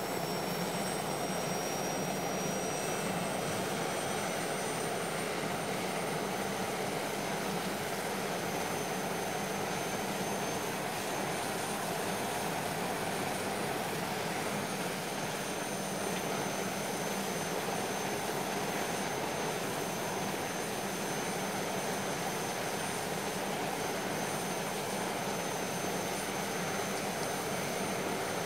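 Jet aircraft engine sound effect: a steady rushing roar with a high whine that climbs slowly over the first few seconds and then holds steady.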